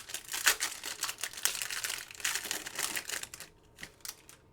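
Crinkling of a foil trading-card pack wrapper being handled and torn open, with a dense crackle for about three seconds, then a few light clicks near the end.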